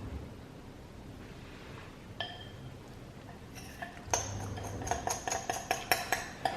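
A metal spoon clinking against a bowl: a single ringing clink about two seconds in, then a quick run of ringing taps, about four a second, from about three and a half seconds on.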